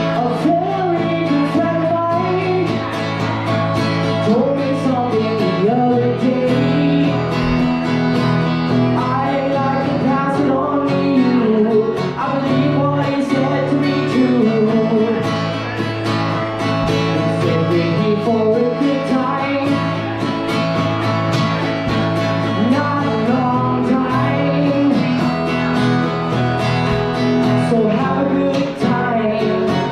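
A song played on strummed acoustic guitar with a voice singing the melody.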